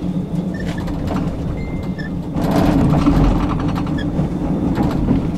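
Tram running, heard from on board: a steady low motor hum over wheel-and-rail rumble and rattle. The rumble grows louder for about a second partway through.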